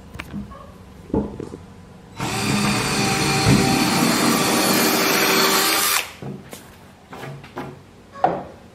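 Cordless drill running steadily for about four seconds as it bores into a pine board, countersinking for 2-inch deck screws. A few short knocks of handling come before and after it.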